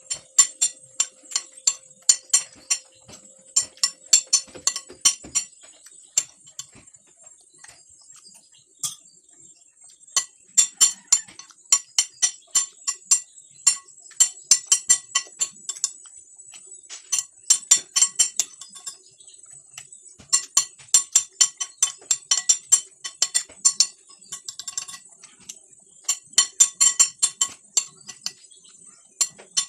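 Metal spoon and fork clinking and scraping against a plate during eating, in quick runs of sharp ringing clinks with short pauses between them.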